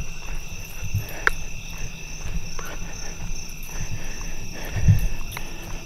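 Crickets chirping steadily in the night, with irregular low thumps and rumbling from a handheld microphone being moved about.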